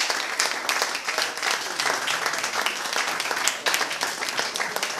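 A small audience applauding, many hand claps running together in a steady stream.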